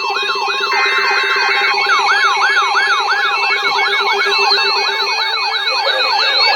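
Several emergency alert attention tones sounding at once: overlapping warbling tones that rise and fall several times a second, over steady high beeps. A short, dense buzzy block of tone sounds about a second in.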